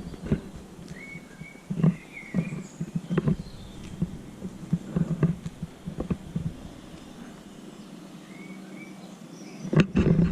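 Irregular footsteps and knocks on stone paving, with a few short bird chirps and a faint steady low hum behind.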